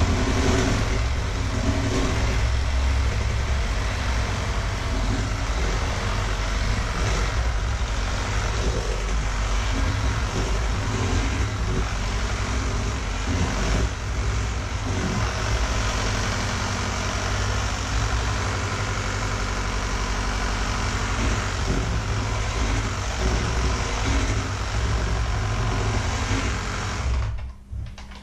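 Electric hand mixer running steadily, its beaters whisking batter in a stainless steel bowl; it is switched off near the end.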